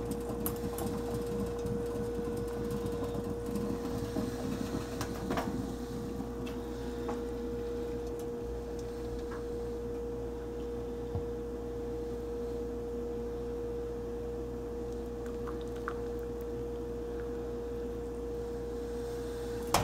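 Percolated coffee pouring slowly from a stainless percolator's spout through a mesh strainer into a ceramic mug, a soft trickle under a steady hum, with a few light clinks in the first seconds.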